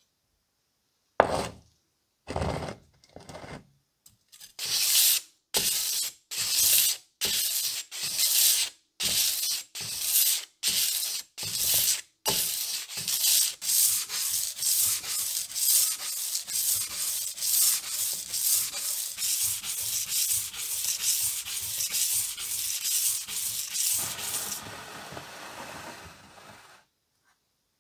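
Steel cleaver edge, clamped in a sharpening jig, scraped across blue sandpaper to sharpen it: separate strokes at first, then quicker back-and-forth strokes without pause, fading to a fainter scrub near the end.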